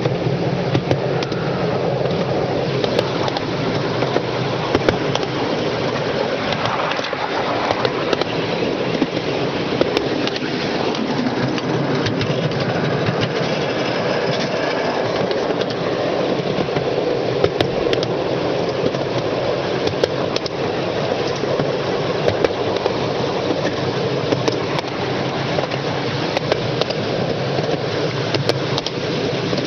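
Miniature railway train in motion, heard from on board: a steady rolling rumble of small wheels on the track, with scattered clicks throughout.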